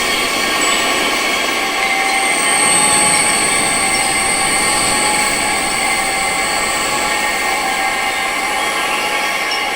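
Steady wind-like hiss with several sustained high-pitched tones layered over it, a tinnitus sound-therapy soundscape; one high tone swells for a couple of seconds about two seconds in.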